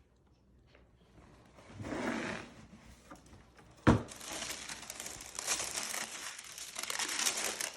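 Sneaker box being opened: a brief rustle about two seconds in, a sharp knock just before four seconds, then tissue paper crinkling and rustling steadily.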